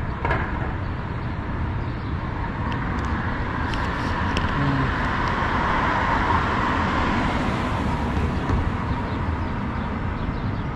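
A car passing on the street: tyre and engine noise swells about four seconds in, peaks a couple of seconds later, then fades, over a steady low rumble.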